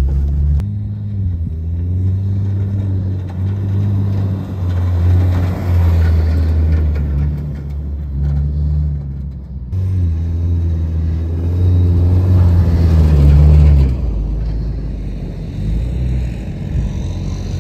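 Ford Bronco's engine running under load as it drives through deep sand, its pitch rising and falling several times as the throttle is worked. The sound breaks off abruptly about ten seconds in and picks up again.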